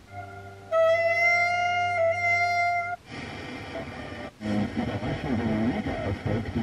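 Car FM radio being tuned station by station: held instrumental notes from a classical-music station, a short stretch of hiss about three seconds in as the receiver steps to a frequency with no clear station, then a brief dropout and another station with a voice.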